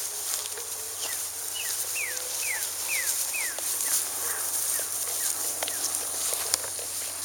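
A bird singing a quick series of about ten clear whistled notes, each sliding down in pitch, about two a second and fading toward the end, over a steady high hiss. A sharp click sounds about six and a half seconds in.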